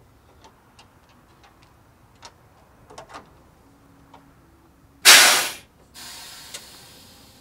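Light scattered clicks of hands and tools working in a truck's engine bay, then a loud, sudden hiss lasting about half a second near the end, followed by a quieter hiss that fades away.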